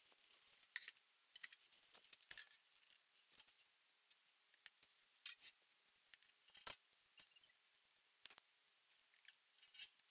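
Faint, irregular clicks and light taps of a knife and plate being handled while a cake on a wooden board is cut. The clicks are unevenly spaced, sometimes a few close together.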